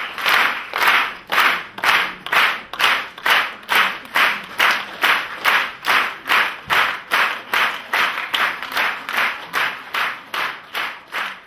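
Concert audience clapping in unison, a steady rhythmic applause of about two claps a second that grows slightly fainter toward the end.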